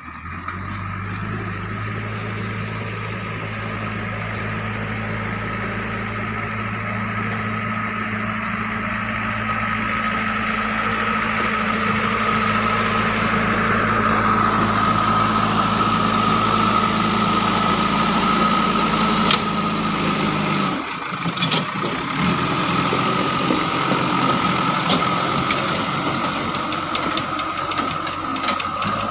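JCB 3DX backhoe loader's diesel engine running steadily under load, with a steady high whine above the engine hum. About twenty seconds in the engine note changes abruptly, and scattered clicks and knocks follow.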